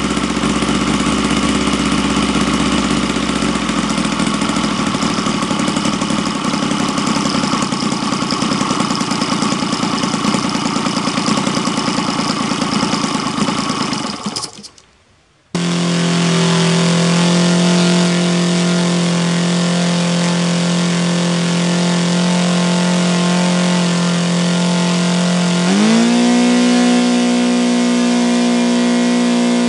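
Saito FA 120R3 three-cylinder four-stroke glow radial model engine running at low speed. The sound drops out briefly about halfway through, then returns as a steady low idle. Near the end the pitch steps up as the speed rises, while an external glow igniter is used to relight the #2 cylinder, which had quit.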